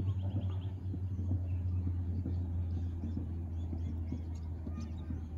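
River ambience: a steady low rumble, with faint bird chirps and small irregular clicks over it, including a short trill just after the start.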